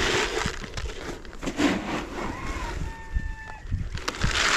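Granular fertilizer poured from a cut-off plastic jug into a plastic-bottle dispenser: a hissing rattle of granules at the start and again near the end, with light knocks of plastic in between.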